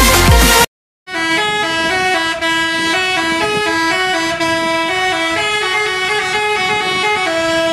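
A bus's telolet basuri horn, a multi-tone musical air horn, playing a tune of stepped notes. Loud electronic dance music cuts off just before it, with a brief silence between.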